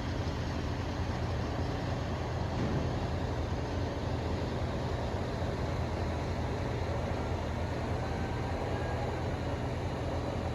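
Steady, loud mechanical din from tree-cutting machinery working outside, a constant low hum under a wide hiss that does not change much.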